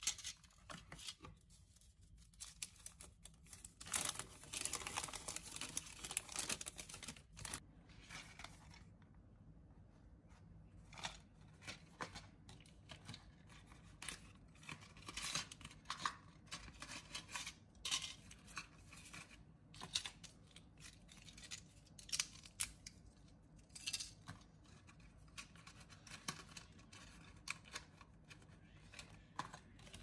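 Close handling of packaging: a card tablet box, a blister pack and a plastic treat pouch. There are a few seconds of rustling and tearing about four seconds in, then a run of short clicks and crinkles.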